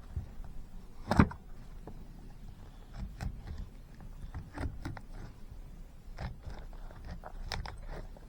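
Victorinox Fieldmaster pocketknife blade cutting and peeling birch bark: a string of short, irregular scrapes and cracks, the loudest about a second in.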